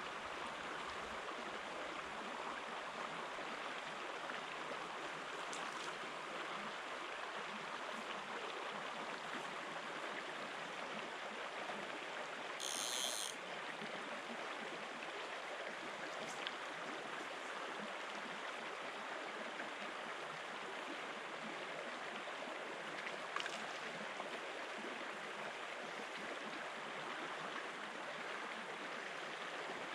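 Shallow river running steadily over stones in a riffle. A brief high-pitched sound cuts in about halfway through.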